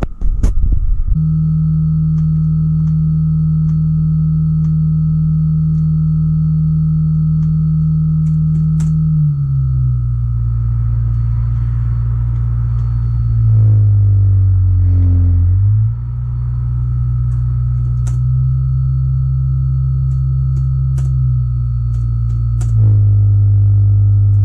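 Nissan Leaf EM57 permanent-magnet drive motor spinning under inverter control, making a loud steady electric hum and whine, with a thin high whistle above it and a few light ticks. It starts about a second in. The pitch steps down about a third of the way through, dips and wavers around two-thirds through, then shifts again near the end as the motor speed changes.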